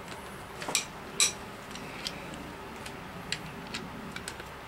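Sharp metallic clinks and taps, about eight in all, the loudest a little over a second in, as a long bar is worked against a connecting rod and piston inside a small-block Chevy engine block to push the piston out of its cylinder.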